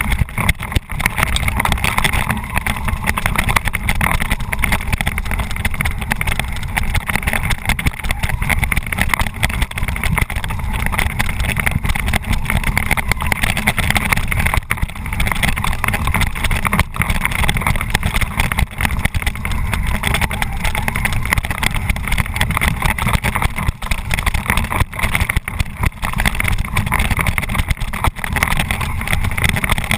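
Electric motors and gearboxes of a Tamiya Bullhead RC monster truck running continuously as it drives over a rough track and through grass, heard from a camera mounted on the truck. The truck is running on nearly flat batteries.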